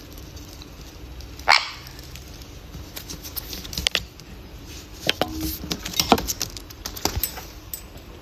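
A pet parrot's short sounds: a brief sharp call about a second and a half in, then a run of scattered clicks and taps.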